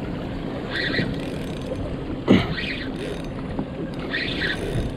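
Boat motor running steadily under way, with wind and water noise over it. A few short sounds break in: one about a second in, a sudden louder one with a falling pitch a little past the middle, and another near the end.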